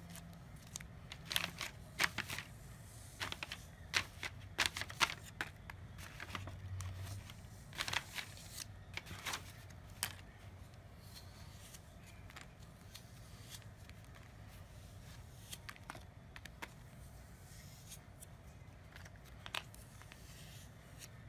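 Light clicks and rustles of hands handling small plastic toy pieces and packaging, busy for the first ten seconds or so, then only now and then.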